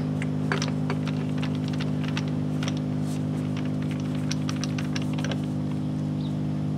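Irregular light metallic clicks and taps as a heavy socket tool is fitted and worked onto a truck wheel's lug nuts, over a steady low machine hum.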